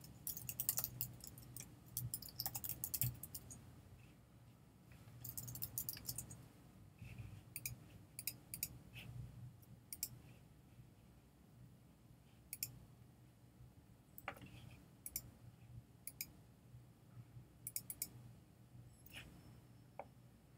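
Faint computer mouse clicks, some single and some in quick clusters of several, over a low steady hum.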